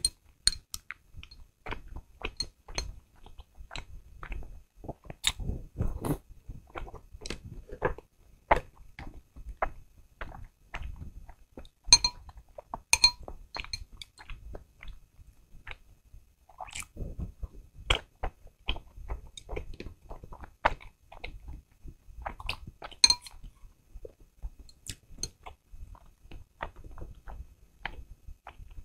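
Eating meat-filled soup dumplings: wet chewing and biting sounds, mixed with chopsticks clicking and clinking against a glass sauce bowl as the sauce is stirred. A few of the clinks ring briefly like struck glass.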